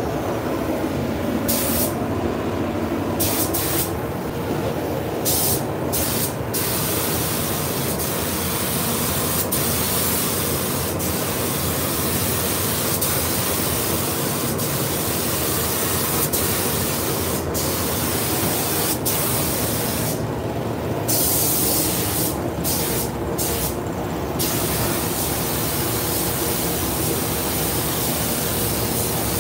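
Gravity-feed paint spray gun hissing steadily as it sprays a car body, cutting out briefly a few times when the trigger is let off, over a steady low noise.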